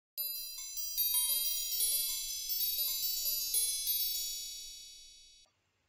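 Short intro jingle of bright chime notes entering one after another over a simple lower melody, the notes ringing on together and fading away until the sound stops shortly before the end.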